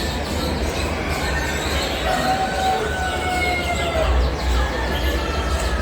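Roosters crowing and chickens clucking in a crowded poultry shed, several long drawn-out calls over a steady din with a low rumble.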